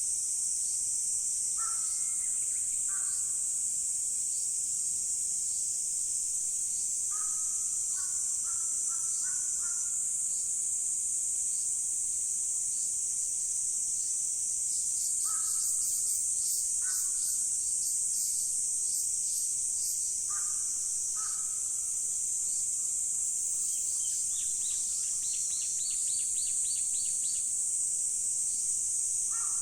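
Crows cawing in short groups of calls every few seconds over a steady, high-pitched chorus of singing insects. Smaller birds add quick high chirps in the middle and a fast run of calls near the end.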